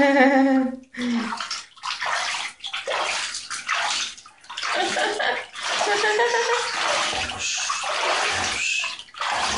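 Hands splashing and sweeping water in a shallow bathtub, a run of irregular splashes with short gaps. A voice trails off in the first second.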